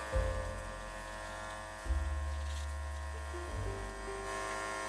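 McCulloch MC1375 steam cleaner jetting steam, a steady buzz with a hiss over it while the trigger is held.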